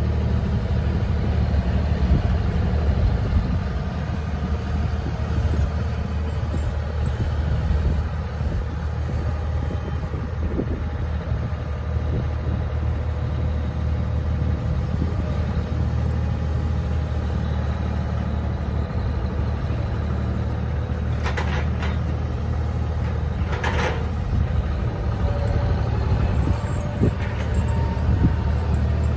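John Deere loader tractor's engine running steadily while working a pile of chicken litter. Late on, two short, sharp noises come about two seconds apart.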